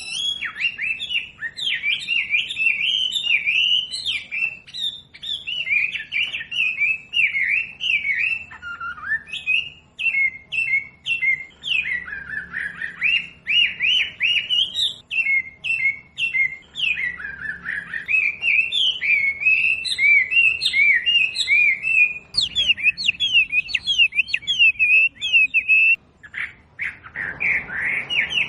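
Wambi bird singing a fast, unbroken stream of high chirps and twittering trills, with a brief pause near the end. It is a masteran recording meant for songbirds to copy.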